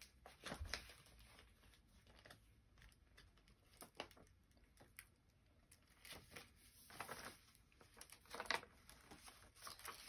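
Near silence with scattered faint rustles and taps of paper pages, as a handmade paper book is held up and handled.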